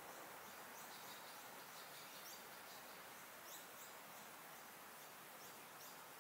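Faint outdoor quiet with a steady hiss, over which small birds give many short, high, rising chirps.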